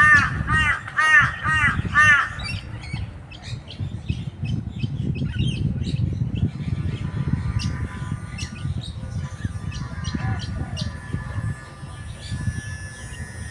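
A crow caws loudly in a quick series, about two calls a second, and stops a couple of seconds in. Faint small-bird chirps and clicks follow over a low, steady rumble.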